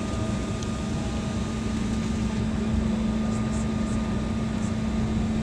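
Steady cabin drone inside an Embraer E190 taxiing, its engines and air conditioning running, with a steady low hum throughout.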